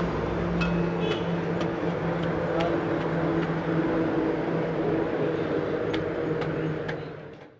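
An engine running steadily with an even hum, fading out near the end.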